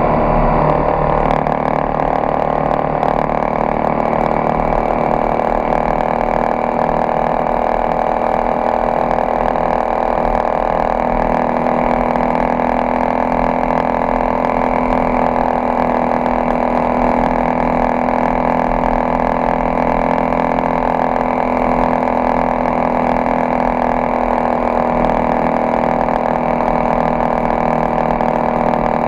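Honda XRE 300 motorcycle's single-cylinder engine running at a steady cruising speed, its pitch settling just after the start and then holding even.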